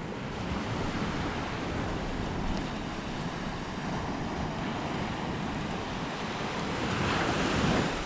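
Sea surf washing on the beach, with wind buffeting the microphone; a wave washes in louder about seven seconds in.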